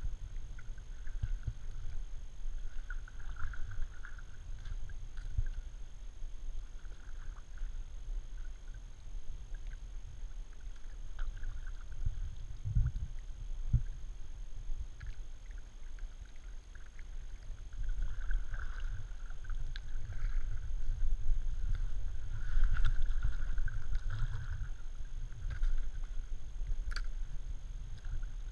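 Kayak paddle strokes through calm creek water, with soft recurring splashes and drips as the blades dip and lift, over a steady low rumble on the kayak-mounted camera's microphone.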